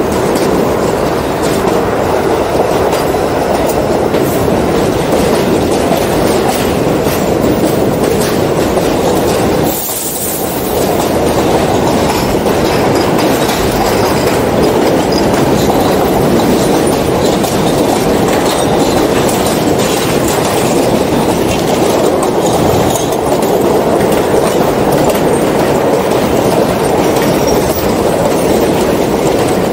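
New York City subway W train pulling out of a station and running along elevated track: a steady rumble of steel wheels on rail with clickety-clack over the rail joints, briefly dipping about ten seconds in.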